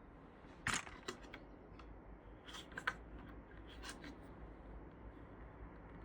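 A few short, sharp plastic clicks and snaps, about five over the first four seconds, as an electric scooter's display housing is handled and taken apart. A faint low hum lies underneath.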